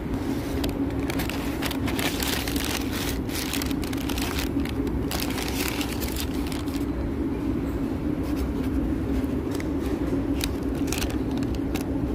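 Paper takeaway bag and paper food wrapper crinkling and rustling as they are handled, dense for the first few seconds and more scattered later, over a steady low hum.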